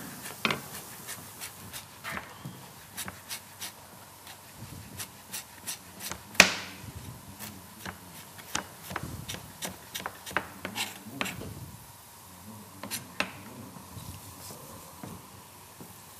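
Knife finely chopping ginger, the blade knocking against the chopping surface in irregular sharp knocks, one or two a second, with one louder knock about six seconds in.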